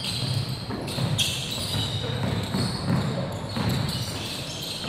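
Basketball game sounds in a gym: the ball bouncing on a hardwood court and short high sneaker squeaks, echoing in the hall.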